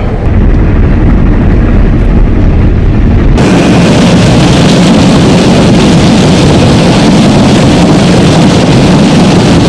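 Harvest machinery engine running steadily, a loud constant rumble. About three and a half seconds in, the sound cuts abruptly to a brighter, hissier machine noise.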